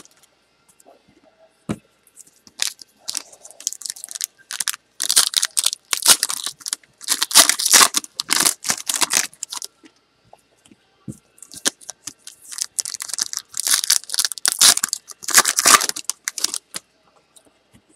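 Foil trading-card pack wrappers being torn open and crinkled in the hands. There are two busy stretches, one about five seconds in and one about twelve seconds in, with faint clicks of card handling between them.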